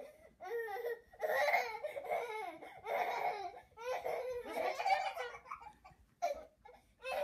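Laughter coming in repeated bursts of about half a second to a second each, with short pauses between them.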